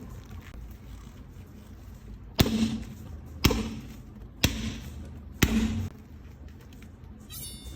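Four solid thumps from boxing gloves striking, evenly spaced about a second apart, each trailing a short low ring.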